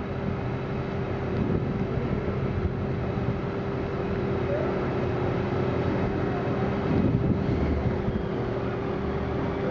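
Docked car ferry's engines and onboard machinery running, a steady drone with a constant hum tone, with some wind on the microphone.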